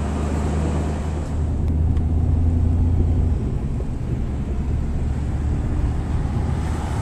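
Vehicle driving at road speed, heard from inside the cab: a steady low rumble of engine and tyres on pavement, swelling a little a couple of seconds in.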